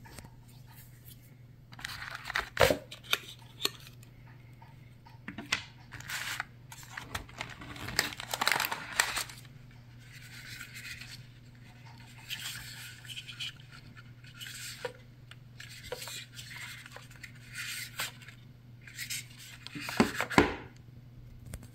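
Packaging of a Samsung SmartThings Station being opened by hand: irregular bouts of tearing, rustling and scraping with a few sharp clicks, over a faint steady hum.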